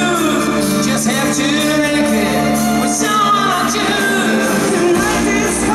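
Live rock band playing an unplugged arrangement, with acoustic guitar and drums under a male lead vocalist singing, heard from the audience in an arena.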